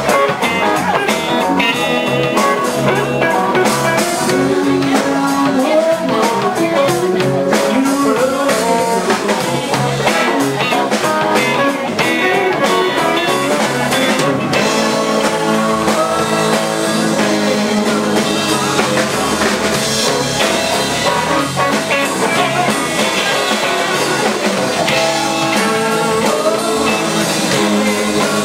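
Live band jamming: several electric guitars over electric bass and a drum kit, playing continuously and loud.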